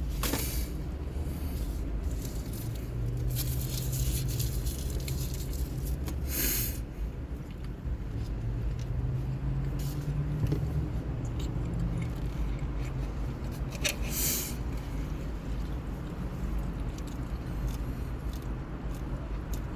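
Eating noises: brief rustles and crunches of a food wrapper and bites a few times, over a steady low rumble.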